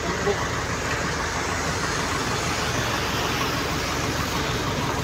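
Steady road traffic noise: an even rush of vehicles with a low engine rumble and no distinct passing car.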